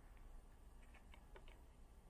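Near silence with a few faint, light clicks, as metal multimeter probe tips touch the contacts of a USB port.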